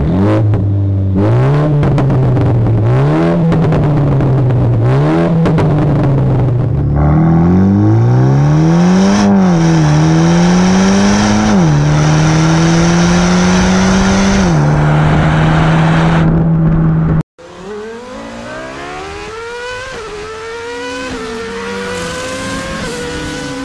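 Mini John Cooper Works Clubman's turbocharged four-cylinder engine through a Remus race exhaust, revved in repeated blips, then pulling with the pitch rising and dropping at gear changes before holding a steady note. After a sudden cut near two-thirds of the way through, a quieter engine note climbs again in steps.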